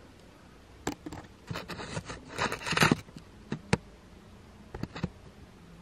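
Handling noise from a hand-held camera being worked through a narrow window opening: scattered clicks, taps and short scrapes, thickest about two to three seconds in.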